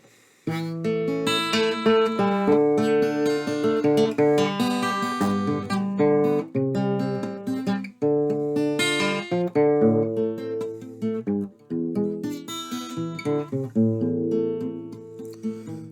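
Acoustic guitar playing a slow instrumental introduction, picked chords and melody notes, starting about half a second in.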